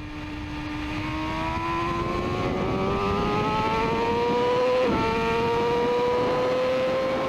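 Motorcycle engine pulling under load, its pitch climbing slowly. About five seconds in there is a brief break and dip, like a gear change, and then it climbs gently again.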